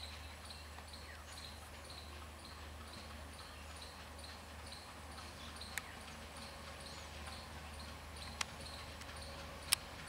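Low, steady rumble of an approaching WDM-3A diesel locomotive's ALCO 251 engine, under a high chirp that repeats about twice a second. Three sharp clicks come in the second half, the last the loudest.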